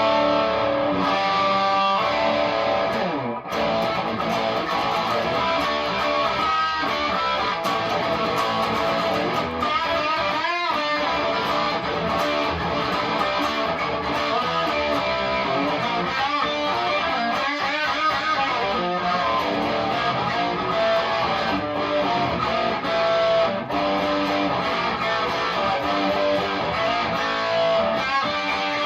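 Electric guitar (a Les Paul Custom copy) played through a Marshall DSL40 combo amp on its ultra gain channel, without an overdrive pedal: continuous distorted riffing with held notes and chords.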